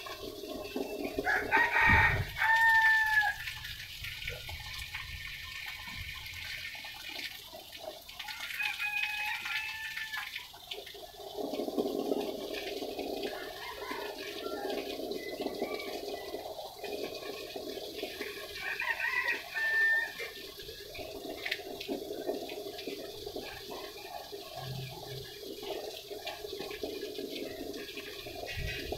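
A rooster crowing three times: a loud crow about two seconds in, then two fainter crows about seven and seventeen seconds later, each ending on a falling note. A steady background rush sets in about eleven seconds in.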